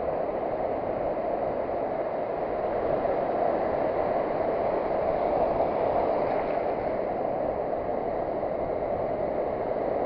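Steady wash of surf breaking along the beach, swelling a little and easing again.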